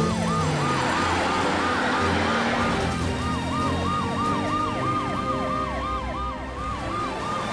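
Emergency-vehicle sirens of the cartoon rescue cars, a fast yelping siren rising and falling about three times a second. A second siren overlaps it partway through.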